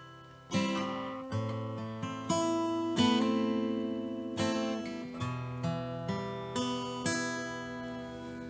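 Background music on acoustic guitar: chords strummed or plucked about once a second, each note ringing and fading.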